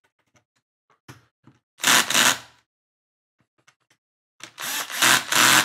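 Cordless Bosch drill/driver driving small screws into a plastic RC car chassis in two short runs, the second one longer, with faint clicks of the bit and parts in between.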